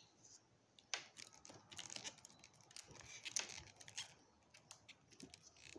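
Scattered faint clicks and crackles as a group of 18650 cells is pried out of an e-bike battery pack, the hot glue and cut nickel strip that hold it giving way. The sharpest crack comes a little after the middle.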